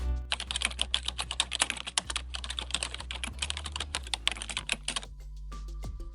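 Rapid clicking of typing on a computer keyboard, a fast run of keystrokes that stops about a second before the end.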